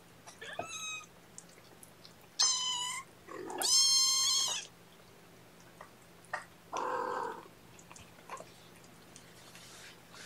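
Three-and-a-half-week-old kittens mewing, high-pitched: a short mew, a second one about two seconds later, then a longer one about a second long. A lower, shorter cat call follows about seven seconds in, over a faint steady hum.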